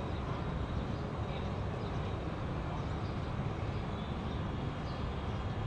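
Distant jet airliner rumbling steadily as it rolls out along the runway just after touchdown.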